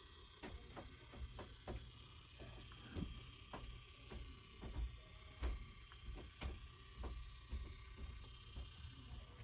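Small motorised display turntable turning, with a low hum and irregular light clicks about one or two a second.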